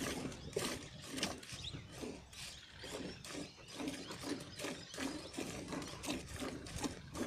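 A cow being milked by hand into a steel pail: rhythmic squirts of milk, about two a second, striking the froth of a nearly full bucket.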